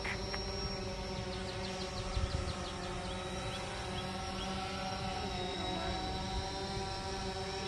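Camera drone hovering, its propellers giving a steady buzz of several tones at once.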